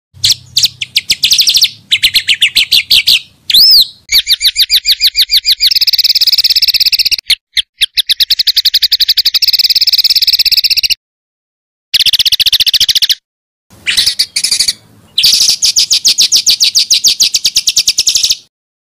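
Songbird song of the rapid-fire 'tembakan rapat' kind: tight trills of sharp high notes repeated about ten a second, in runs of one to three seconds broken by short pauses. About three and a half seconds in comes a single whistled note that rises and falls.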